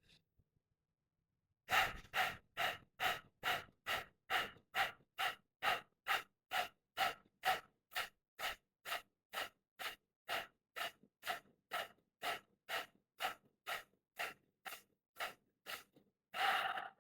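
Bhastrika (bellows breath) pranayama: rapid, forceful breathing in and out through the nose, pumped by the belly, in an even rhythm of about two strokes a second. It ends with one longer, deeper breath near the end.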